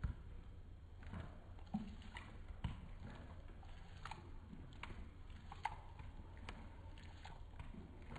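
A Great Dane licking and lapping gravy from a foil pan: faint, irregular wet clicks and smacks of the tongue and mouth over a low steady hum.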